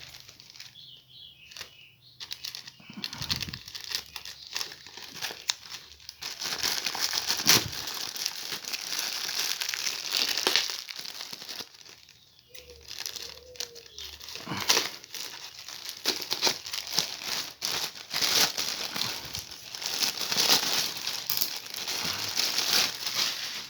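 Shipping parcel being unwrapped by hand: its wrapping crinkles and crackles with bouts of tearing, busiest in the middle and second half.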